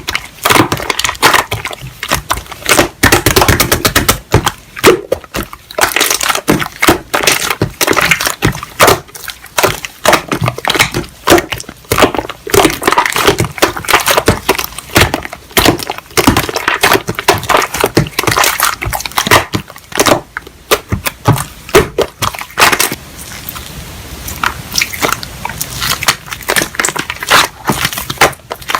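Slime being squished and pressed by hand, giving rapid, irregular crackling and popping clicks, a little softer for a few seconds past the middle.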